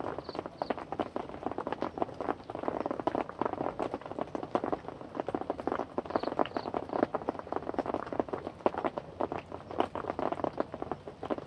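Heavy rain falling, a dense run of many drops striking close by. A few faint high chirps come briefly about half a second in and again around the middle.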